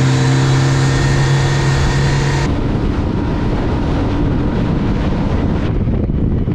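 Yamaha 90 four-stroke outboard running at speed, a steady engine tone over rushing wake water. About two and a half seconds in, the engine tone mostly gives way to rumbling wind and water noise as the hull throws spray through the chop.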